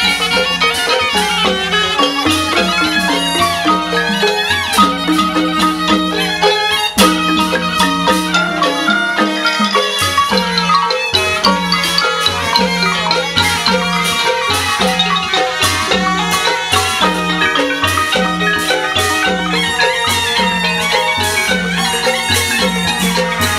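Thai classical piphat ensemble playing: rapid runs on ranat xylophones, their wooden bars struck with padded mallets, over a circle of tuned bossed gongs, with a reed pipe playing the melody above and a steady beat below.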